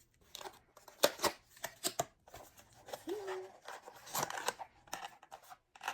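Hands opening a small cardboard blind box and its packaging: a run of sharp taps, clicks and scrapes, with a short voiced sound about three seconds in.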